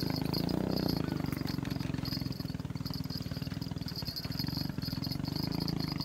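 A low, steady engine drone with a fast even pulse, and a high insect buzz that comes and goes over it.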